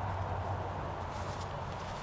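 Truck engine running steadily with a constant low hum, and a few faint clicks over it.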